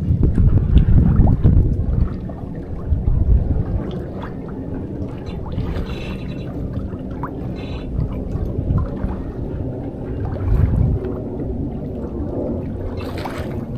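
Wind buffeting the microphone, heaviest in the first two seconds, over water gurgling along a sailboat's hull as it sails in light wind, with a few small knocks.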